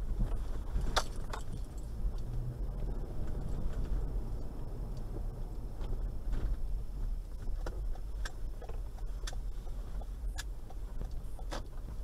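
Toyota Land Cruiser Prado 120 driving slowly at low revs, a steady low rumble heard from inside the cabin, with short sharp clicks and light rattles every second or so.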